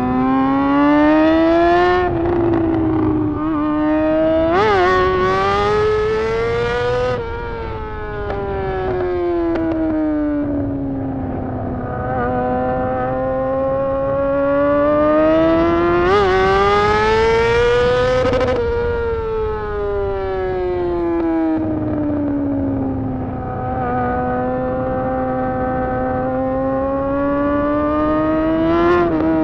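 Unmuffled inline-four engine of a Honda CBR 600 with no exhaust fitted, its pitch climbing steadily for a few seconds and then sliding back down, over and over as the throttle is opened and closed. There are a few quick sharp blips of revs, and a long steady stretch at lower revs near the end.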